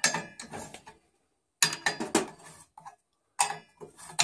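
Steel wrench clicking and clinking on a flange nut as the circulator pump's flange bolts are tightened, in three bursts of quick clicks about a second and a half apart.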